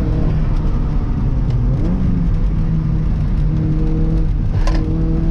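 Toyota MR2 AW11's 4A-GE four-cylinder engine running on the road, heard from inside the cabin, its note rising about two seconds in. A single sharp click comes near the end.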